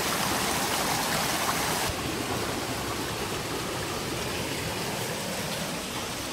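Shallow creek running over rocks: a steady rush of water. About two seconds in it turns a little quieter and duller.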